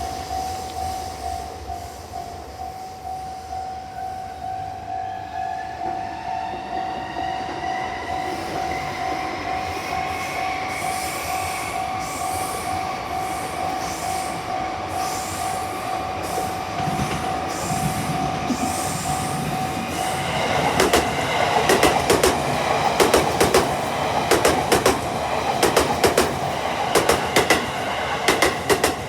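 Level-crossing warning bell ringing in a steady, even pulse while an electric train approaches, its motor whine rising in pitch. About two-thirds of the way in the bell stops and the passing train takes over, with rapid clacking of wheels over rail joints.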